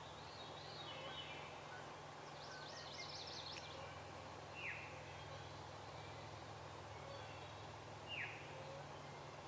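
Wild birds calling over a steady low background hum: a quick high warbling trill about two and a half seconds in, then two short, sharp chirps that drop in pitch, about five and eight seconds in, the loudest sounds here.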